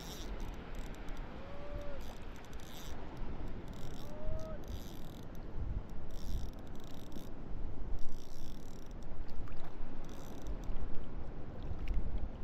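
Wind rumbling on the microphone and shallow water moving around the wading angler, with short hissy bursts every second or so while a spinning reel is worked against a hooked fish. Two faint brief squeaks, one early and one about four seconds in.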